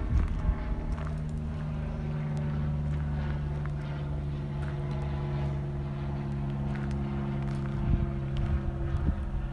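Ford F-250 Super Duty's Power Stroke turbo-diesel V8 idling, a steady even hum.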